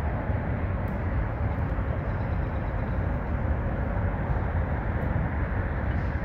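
Steady low rumble of traffic on the elevated viaduct overhead, with no distinct events standing out.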